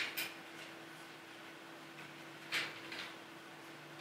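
Light plastic clicks and scrapes from a small knockoff MiniForce X Sammy helicopter-robot toy as a fingernail forces its stiff head-raising sliding tab: two clicks at the start and two more about two and a half seconds in.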